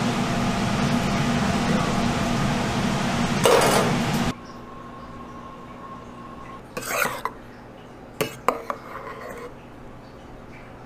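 Steady roar of a busy commercial kitchen, with a brief clatter about three and a half seconds in. It cuts off abruptly to a quiet room, where a metal spoon clinks against stainless steel bowls a few times.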